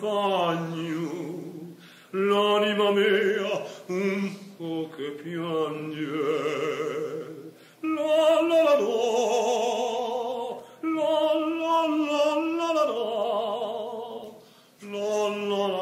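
A single voice singing an Italian song in slow phrases with short breaks between them. Held notes carry a wide vibrato.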